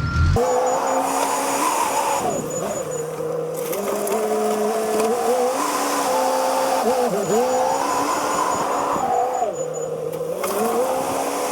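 Caterpillar 420F backhoe-loader working: the engine revs and its pitch sags and recovers several times as the hydraulics take load.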